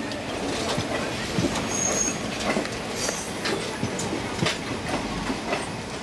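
Passenger coaches running on rails: steady rumble with irregular clacking of wheels over rail joints as a train passes close alongside on the next track. A brief high squeal comes about two seconds in.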